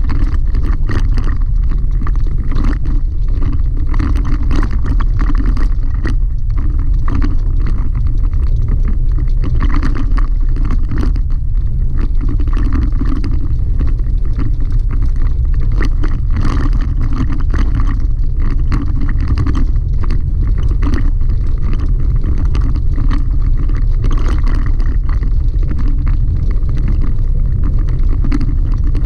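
Pickup truck driving a rough gravel road, heard from inside the cab: a steady low rumble from the tyres and suspension, with frequent small clicks and rattles of gravel and loose parts.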